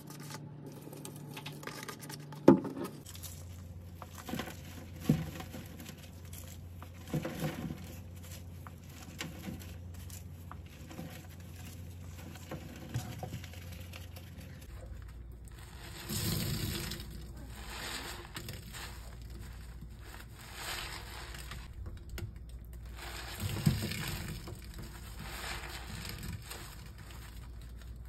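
Lime Ajax powder cleanser and crumbled powder sprinkled and dropped onto two scrub sponges in a stainless steel sink, with scattered patter and taps, the loudest about two and a half seconds in. From about halfway, a wet, powder-covered sponge is pressed and squeezed several times, a swell of sound every two to three seconds.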